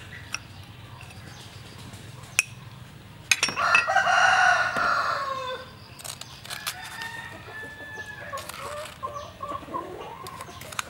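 Two sharp clicks, then a rooster crows once, loud, for about two seconds, the call falling in pitch at the end. After it, chickens cluck with short calls.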